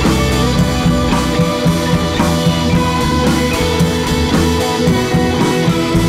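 Background rock music with electric guitar and drums, playing steadily.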